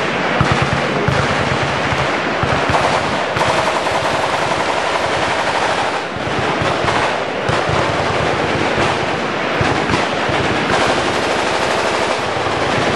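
Automatic weapons firing continuously: dense, overlapping bursts of machine-gun fire from several guns at once, with no break.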